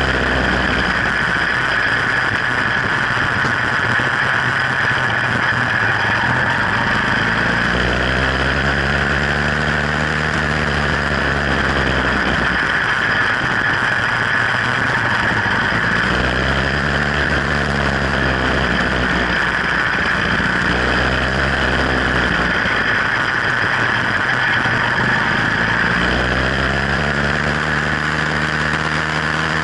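Sky Hawk 66cc two-stroke bicycle engine running while the bike is ridden, its pitch rising and falling several times.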